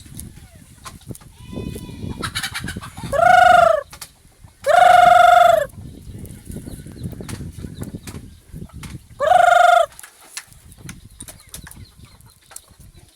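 Farm animals calling: three loud, drawn-out calls, the longest about a second, about three, five and nine seconds in, with fainter scattered animal sounds between.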